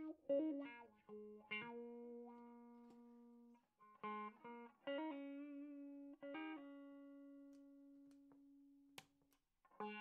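Fender Blacktop HH Stratocaster electric guitar played through an amplifier: single notes and small chords picked and left to ring out, ending in one long held note that slowly fades. A sharp click comes near the end.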